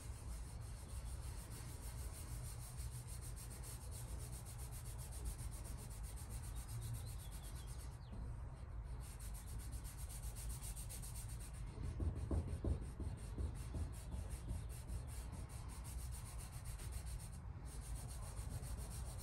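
Thumb and fingers rubbing over a decal's paper transfer masking on a metal tool box lid, pressing the decal down onto the paint: a soft, steady rubbing, stronger for a few strokes about twelve seconds in.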